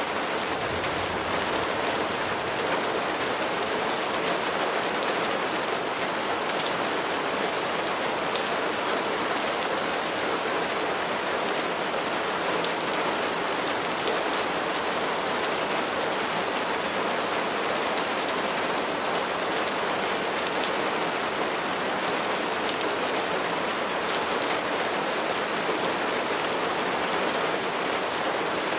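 Steady rain falling, an even hiss with faint scattered drop ticks and no change in strength.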